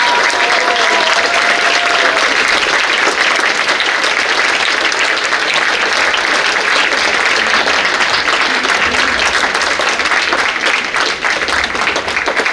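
Audience applauding steadily, many people clapping.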